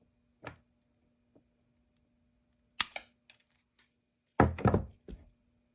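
Wire cutters snipping through the copper centre conductor of a coaxial cable, with one sharp snap about three seconds in. A cluster of louder knocks and thuds follows near the end.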